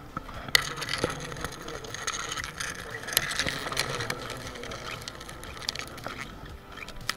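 Handling noise from gloved hands working a metal bee smoker against a hornet's nest: a steady rustling hiss with a few sharp clicks and knocks, about half a second in, about a second in, and near the end.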